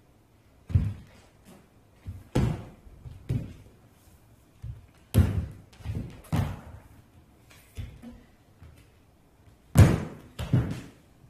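A barefoot dancer's body and feet thudding and scuffing on a stage floor during floorwork: about eight irregular thumps, the loudest two close together near the end.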